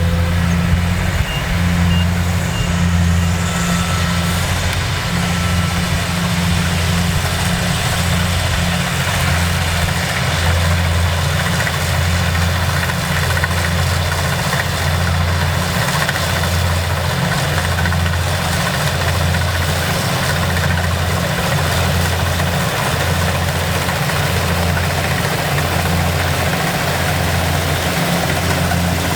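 Kubota DC70 combine harvester's diesel engine running steadily, with a low throb that swells and fades about once a second over a broad hiss.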